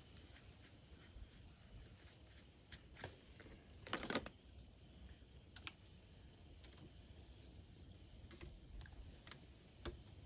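Near silence with faint handling noises: scattered light clicks and a brief scrape about four seconds in.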